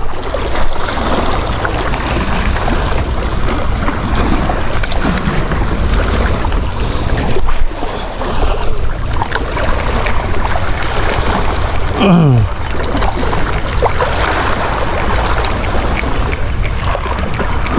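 Wind buffeting the microphone over sea surf: a steady, loud rush with a deep rumble. About twelve seconds in there is one brief falling tone.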